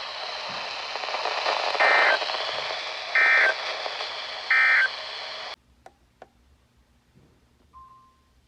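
Weather-radio static hiss with three short bursts of EAS/SAME digital data tones about a second apart: the end-of-message code that closes the alert. The hiss cuts off suddenly about five and a half seconds in, leaving near silence with a couple of clicks and a brief faint beep near the end.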